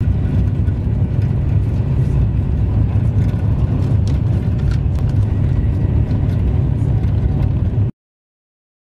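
Steady low rumble of a moving vehicle heard from inside, with a few faint clicks. It cuts off abruptly about a second before the end.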